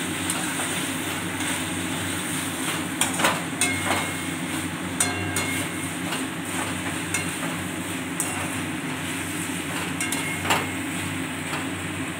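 Perforated metal spatula stirring chicken in thick sauce in a metal wok, scraping and knocking against the pan, with several sharp clinks about three to five seconds in and one more near the end, over a steady hiss.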